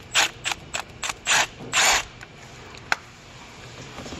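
Cordless electric ratchet running in about six short bursts, backing out the 10 mm bolt that holds the exhaust VVT solenoid on a 2.4L engine, followed by a single sharp click.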